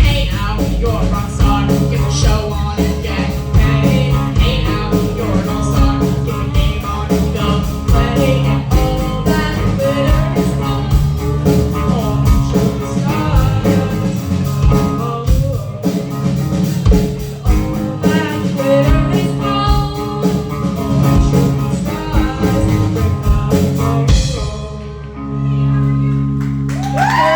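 Live rock band playing loud with drum kit, electric guitar and bass. About 24 seconds in the drums stop and a final held chord rings out.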